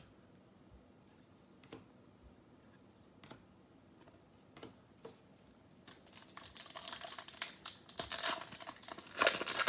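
A few soft clicks of trading cards being flipped, then the wrapper of a 2021 Bowman baseball card pack crinkling and tearing as it is opened. The crinkling starts about six seconds in and is loudest near the end.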